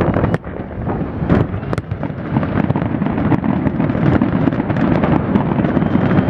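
Fireworks going off: several sharp bangs in the first two seconds, then smaller crackles, over a continuous low rumble of shells bursting.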